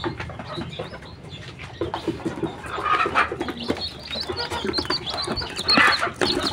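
Day-old free-range chicks peeping over and over in short, high calls, with chickens clucking underneath.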